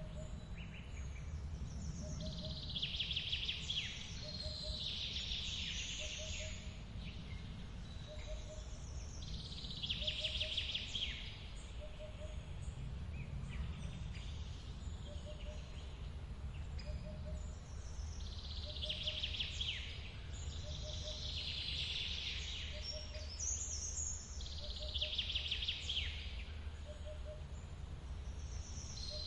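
Forest birdsong: a bird repeats a bright trilled phrase of about a second and a half every few seconds, while a faint short note repeats about once a second, over the steady low rush of a waterfall.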